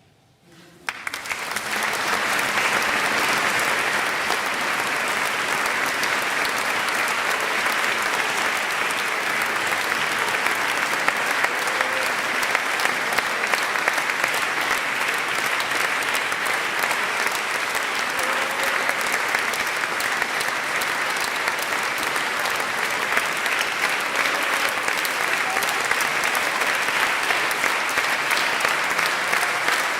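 Audience applause: after a moment of near silence it starts about a second in, builds quickly and continues as steady, dense clapping.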